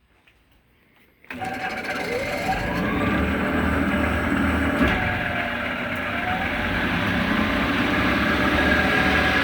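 Clausing 5913 metal lathe starting up in direct drive: the drive comes on suddenly about a second in, a whine rises as the spindle spins up, and then it runs steadily with a loud gear and belt hum.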